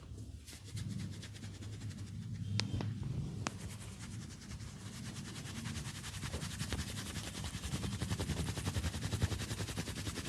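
Massage hands striking the body in a fast, even run of sharp slaps, several a second, with a couple of louder single cracks in the first few seconds.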